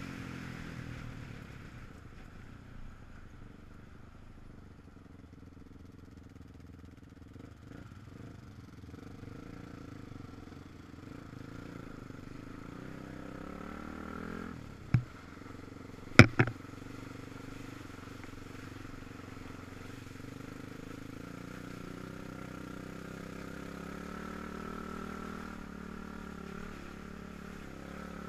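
Quad bike engine running steadily on the move, easing off early on and picking up again, with three sharp knocks about halfway through that are the loudest sounds.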